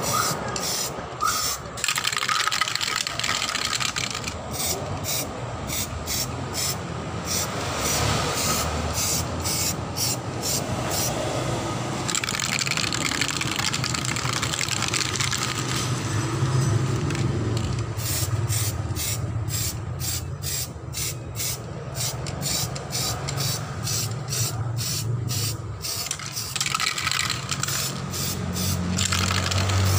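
Samurai aerosol spray can hissing in many short bursts as primer is sprayed onto an alloy wheel, with a low hum underneath that is stronger in the second half.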